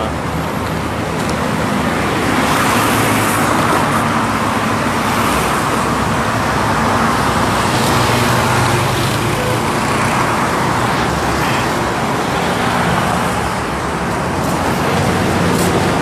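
Steady road traffic: a continuous rushing hiss of vehicles with a low engine hum underneath.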